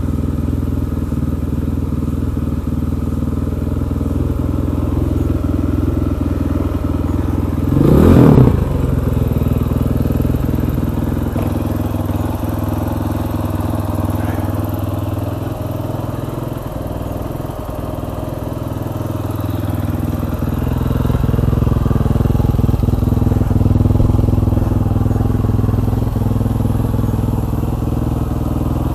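KTM 500 EXC's single-cylinder four-stroke engine running steadily, the level swelling gently late on. About eight seconds in there is a brief, louder burst with a quick change in pitch.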